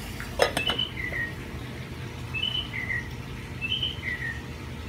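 A glass lid is set onto a stainless steel saucepan with a couple of sharp clinks about half a second in. A bird then calls three or four times, each call a short high note followed by a lower, falling one.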